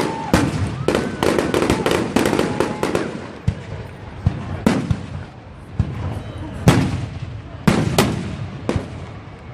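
Fireworks display: a dense run of overlapping bangs and crackle for about the first three seconds, then single loud shell bursts about once a second.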